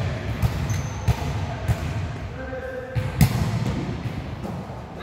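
A volleyball being hit and bouncing on a gym floor: a series of sharp thuds at irregular intervals, the loudest a little past three seconds in, with players' voices faintly underneath.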